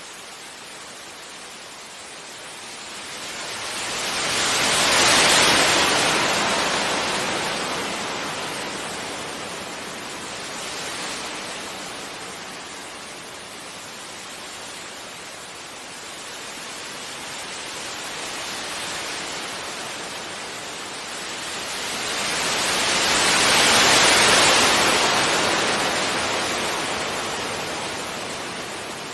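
Ocean waves breaking gently on a beach: two large waves swell up and wash in with a broad hiss, about 5 and 24 seconds in, with smaller surges between and a steady wash of surf underneath.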